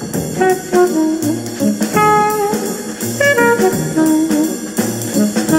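Instrumental jazz music: a melody of held notes over a regular beat.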